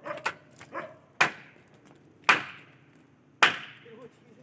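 Three heavy strikes on wood about a second apart, each sharp with a short ringing tail, like an axe chopping or timber being pounded.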